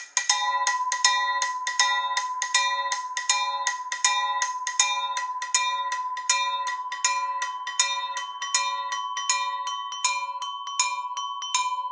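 Tuned wine glasses tapped with thin wooden sticks, ringing in a steady, interlocking repeated pattern of bell-like notes at a few fixed pitches, about three to four strikes a second. Struck metal pipes join about halfway, and the lowest note fades out near the end.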